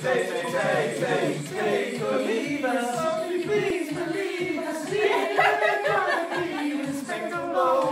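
Two people singing karaoke into handheld microphones, their voices loud over a backing track with a steady beat of about four pulses a second.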